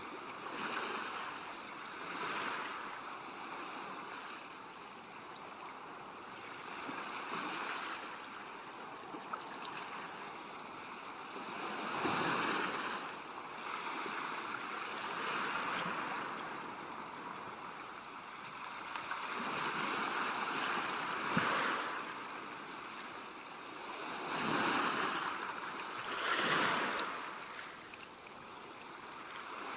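Calm seashore: small waves washing in and drawing back, a steady hiss that swells and fades every few seconds, the biggest surges about twelve seconds in and again in the last few seconds.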